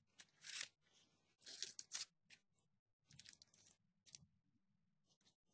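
Crumpled aluminium foil crinkling in several short bursts as a cardboard piece is handled and slid across it.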